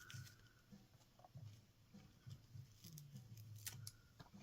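Faint handling sounds: small clicks and rustles of foam packing pieces being taken out of an ornament box, with a few slightly louder clicks near the end.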